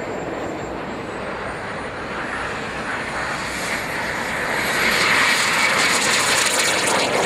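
Small turbine engines of radio-controlled F-16 scale model jets on the takeoff roll. A steady jet roar carries a faint high whine that rises slowly in pitch, and the roar grows louder in the second half.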